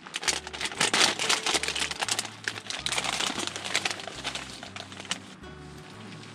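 Plastic snack bag crinkling as it is opened and chips are shaken out onto a wooden plate: a dense run of crackles that thins out about five seconds in.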